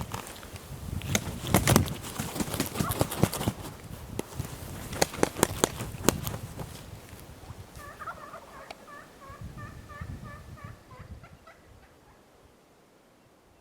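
A wild turkey gobbling about eight seconds in: a rapid, rattling run of short notes lasting about three seconds, quieter than what comes before. Before it, sharp clicks and knocks sound close by for several seconds and are the loudest thing.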